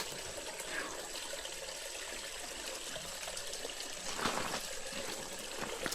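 Creek water trickling and running steadily.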